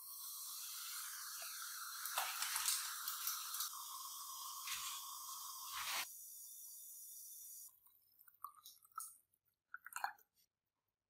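Water poured into a glass beaker onto rust-cleaner powder: a loud hiss with a tone that rises early on and crackles through it, which cuts off about six seconds in. A thinner high hiss runs on for another second or two, then a few small plinks and clicks near the end as more powder drops into the water.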